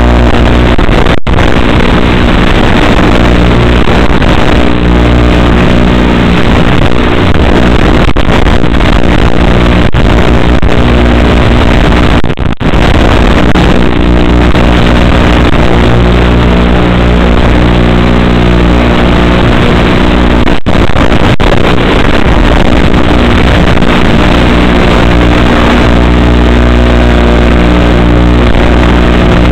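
Eachine FPV racing quadcopter's brushless motors and propellers buzzing under changing throttle, loud and distorted, with several pitches shifting together. The sound cuts out briefly a few times.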